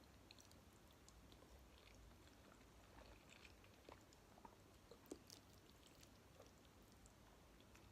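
Faint, close-up chewing of soft jello and gummy candy: scattered wet smacks and little clicks from the mouth, with a sharper smack about five seconds in.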